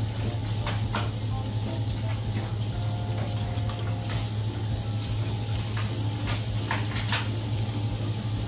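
Tap water running steadily into a stainless sink, a constant hiss over a steady low hum. Scattered short scrapes and clicks come from a blade working over the fish's scales and head as a large-eye bream is scaled and cut.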